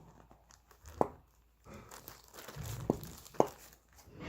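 Plastic slime bag crinkling as it is handled and kneaded, with three sharp clicks or snaps: about a second in, near three seconds, and half a second after that.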